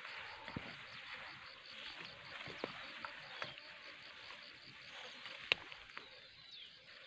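Leafy brush and tall plant stems rustling and swishing as someone pushes through dense vegetation on foot, with a few sharp snaps and cracks of stems or twigs, the loudest about five and a half seconds in.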